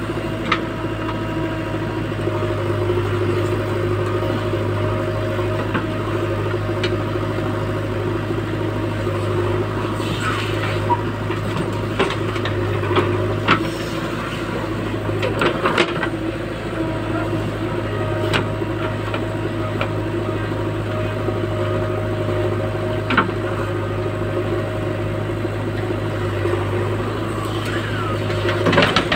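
JCB backhoe loader's diesel engine running steadily under load as the backhoe digs soil and swings it over a trolley. Scattered knocks and clatter from the bucket and dirt, mostly around the middle and again near the end as a load is lifted over the trolley.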